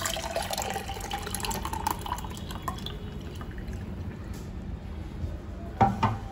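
Fresh orange juice poured from a jug into a glass, splashing and gurgling, the pitch of the filling rising as the glass fills over the first couple of seconds. A sharp knock near the end.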